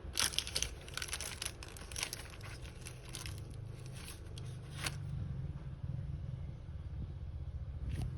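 Crinkling and tearing handling noises, a run of short crackles that thins out after about five seconds, over a steady low hum.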